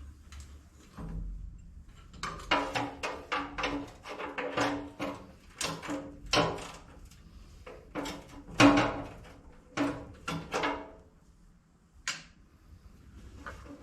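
Metal clanking and knocking with a ringing tone, struck about two or three times a second for several seconds, then a few scattered taps: tools and steel parts knocking together while the backhoe's fuel tank is unbolted.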